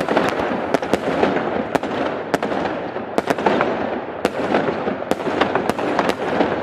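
Fireworks display going off in a dense, continuous barrage: several sharp cracks and bangs a second over a constant crackling rumble. It starts abruptly at full level.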